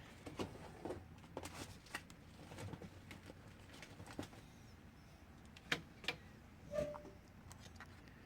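Faint handling of headphones and an Xbox One controller: scattered small clicks and rustles, with two sharper clicks about six seconds in and a soft knock just after.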